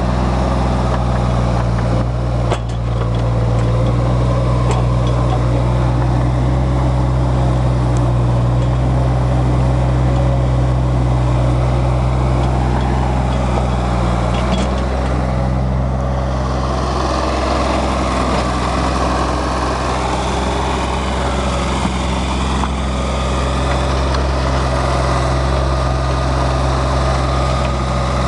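Hanix 037 mini excavator's diesel engine running steadily; about halfway through its tone changes and a harsher, higher-pitched layer comes in, as if under load.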